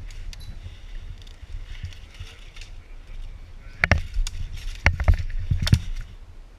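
Several sharp cracks over a steady low rumble. The loudest comes about four seconds in, a close pair follows about a second later, and another comes just after.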